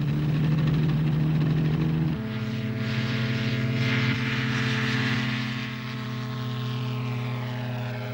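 Ultralight aircraft's propeller engine running steadily, its note dropping to a lower pitch about two seconds in.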